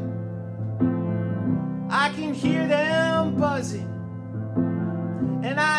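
Singing with piano accompaniment: sustained piano chords, fresh ones struck about a second in and again past four seconds, under a sung phrase from about two seconds in to nearly four, with the next phrase starting near the end.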